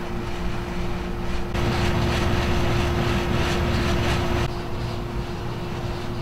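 Steady electrical hum from a fluorescent ceiling light, under the rushing drone of a wall air-conditioning unit running. The drone swells about a second and a half in and drops back about four and a half seconds in.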